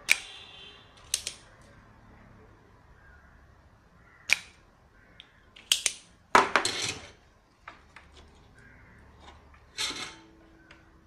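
Scattered sharp clicks and short clatters of hand tools and a printed circuit board being handled on a workbench while components are desoldered from the board, with a longer clatter a little past the middle and another near the end.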